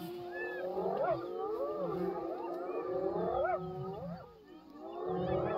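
A group of spotted hyenas calling together: overlapping rising and falling whoops and squeals, with low growling underneath. The calls ease off briefly about four and a half seconds in, then pick up again.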